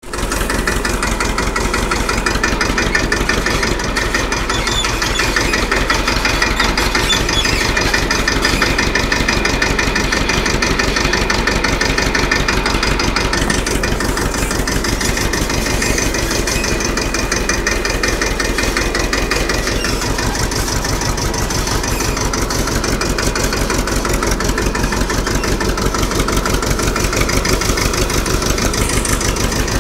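Tafe 25 DI tractor's diesel engine running steadily, its firing pulses even throughout.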